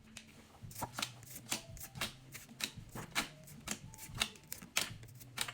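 Pokémon trading cards being slid and flipped one at a time from a freshly opened booster pack: a string of short, sharp card snaps and slides, a few a second.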